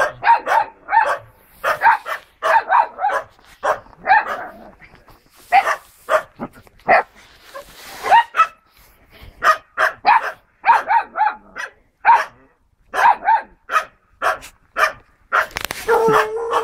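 Red spitz dogs barking in a rapid, unbroken string of short, sharp barks, with a longer held bark near the end.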